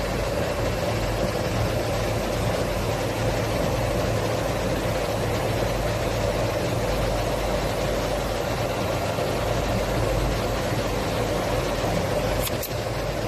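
Steady machine hum of insulating-glass line equipment running, even throughout, with two short sharp clicks near the end.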